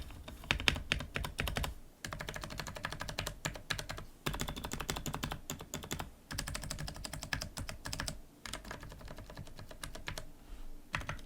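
Fast typing on a Ducky One 2 Mini mechanical keyboard with Cherry MX Brown switches: a rapid, dense patter of keystrokes in runs of about two seconds with brief breaks between them.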